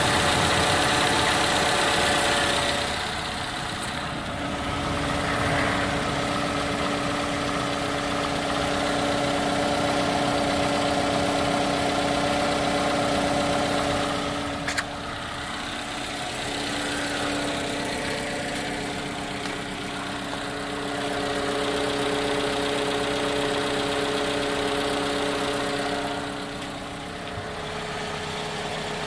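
Toyota Camry V50's 2AR-FE 2.5-litre four-cylinder engine idling steadily with a rattling knock. The owner places the knock on the gearbox side and takes it for a bearing, perhaps the gearbox input shaft bearing; removing the belt tensioner and idler did not cure it.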